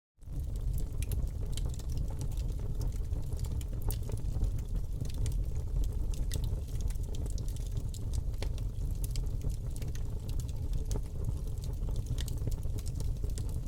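Wood fire burning in a fireplace: a steady low rumble of flames with frequent sharp crackles and pops of the burning wood.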